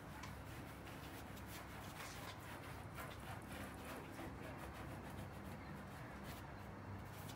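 Faint irregular rubbing of a cloth wiping the painted bonnet of a 1969 MGB GT, over a steady low hum.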